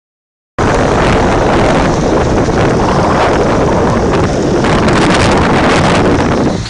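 Loud, steady rushing roar like wind buffeting the microphone. It starts abruptly about half a second in and cuts off near the end.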